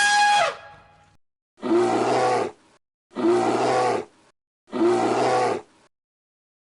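A brassy, trumpet-like animal call that ends about a second in, then the same deep animal roar played three times, each about a second long with short silences between.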